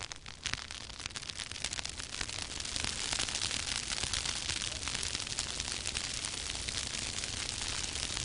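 Dry grass burning in a prescribed fire: a dense crackle of many small pops, growing louder about two to three seconds in as the flames take hold.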